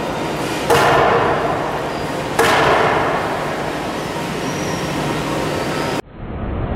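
A wooden beam slammed twice into the front of an LG vandal-resistant digital signage display, about a second and a half apart, each hit a hard bang with a ringing decay. About six seconds in the sound cuts off abruptly to a steady low rumble.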